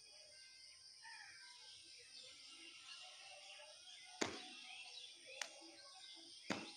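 Faint outdoor ambience with birds calling in short chirps. Three sharp clicks come in the second half, the loudest near the end.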